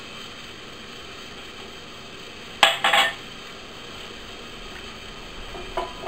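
Kitchenware clinking against a glass mixing bowl: a quick cluster of three sharp knocks about two and a half seconds in, then a lighter clink near the end.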